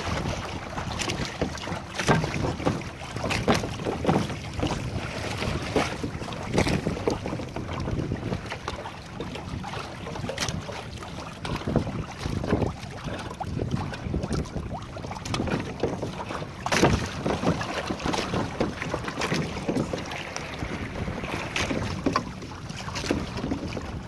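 Wind buffeting the microphone over water lapping and slapping against the hull of a Hobie sailing kayak under sail, with frequent irregular splashes.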